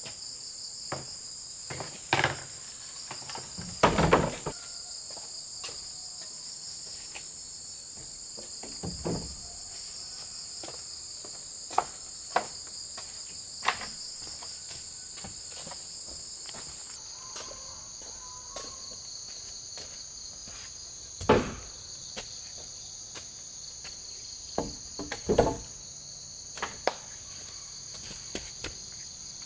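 Steady high-pitched insect chorus in tropical forest, stepping slightly lower about halfway through, broken by scattered knocks and thuds of bamboo poles being handled and set down.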